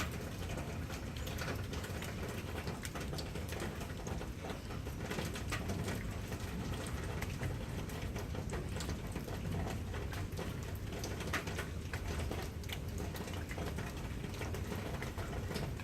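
Steady rain falling, with many individual drops ticking sharply against nearby surfaces over an even hiss.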